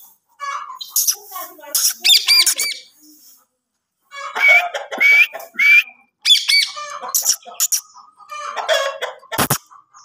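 Rose-ringed parakeet giving a run of short, shrill squawks and chattering calls. They pause for about a second partway through, then start again.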